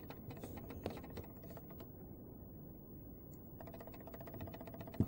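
Faint small clicks and ticks of a metal dotting tool against a glass nail-polish bottle, over quiet room noise, with a quick run of ticks in the last second and a half.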